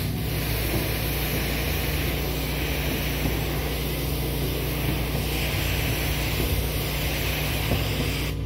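Pressure washer spraying a high-pressure water jet from its wand onto a wooden deck: a loud hiss that cuts off sharply near the end, over the steady running of the pressure washer's engine.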